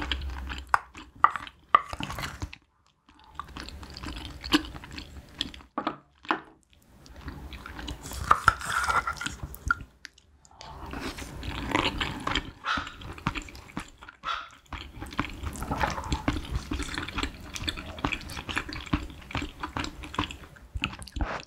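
Close-miked eating: wet slurping of spicy broth from a wooden spoon and moist chewing of soft braised fish and rice, with small clicks, broken by a few short pauses.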